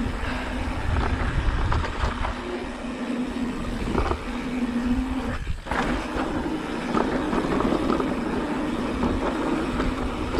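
Specialized Turbo Levo electric mountain bike ridden along a dirt singletrack: a steady motor hum over a continuous low rolling rumble, with scattered small rattles. The sound drops out briefly about five and a half seconds in.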